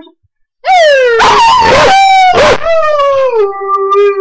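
Dog howling: after a brief pause, one long howl that starts high, drops in pitch about three seconds in and holds there, with a few short harsh blasts over it.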